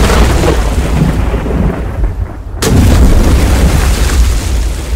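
Thunder rumbling loudly, with a second sudden clap about two and a half seconds in that rolls on and dies away near the end.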